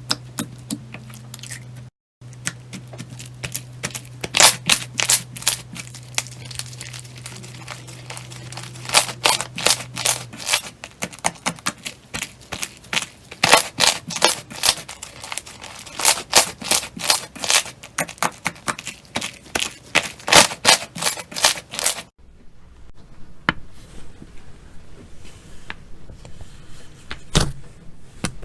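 Slime being squeezed and pressed by hand, giving rapid, irregular sharp clicks and pops as trapped air bursts. There is a brief break about 2 s in and a change of clip near 22 s, after which the pops are sparser and fainter.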